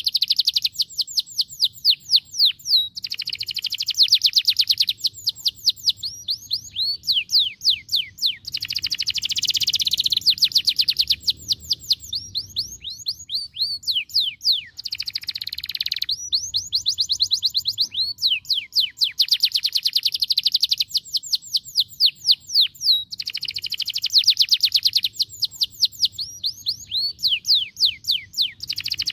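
Domestic canary singing: long, fast trills of repeated downward-sweeping notes alternating with dense rolling phrases, broken by short pauses.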